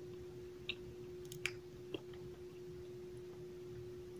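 Cornstarch chunks being chewed, giving a few short, sharp crunchy clicks in the first two seconds, over a steady faint hum.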